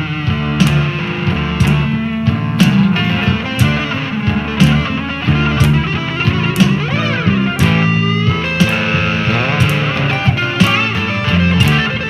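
Instrumental blues rock: electric guitar playing lead lines with bent, sliding notes, over bass guitar and drums with a steady beat.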